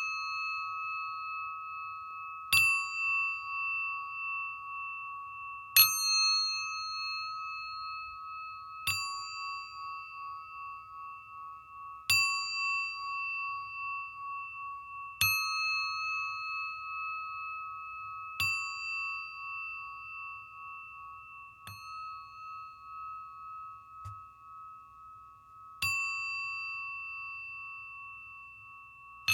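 Singing bowl struck about every three seconds, each strike ringing on as a pure, wavering tone that overlaps the next.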